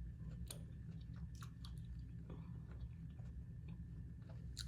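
A person chewing salad close to the microphone, with scattered short crisp clicks and crunches of the mouth at work. A steady low hum runs underneath.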